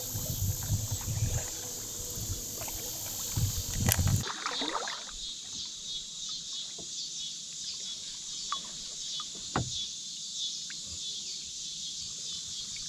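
Light water splashing and dripping around a small boat on a calm river, with a steady, pulsing high insect buzz behind it. A low wind rumble on the microphone cuts off suddenly about four seconds in.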